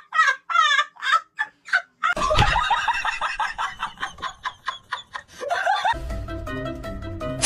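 A fast run of short cackling cries, about five a second, then a busier, noisier stretch, and from about six seconds in, background music with steady tones and a bass line.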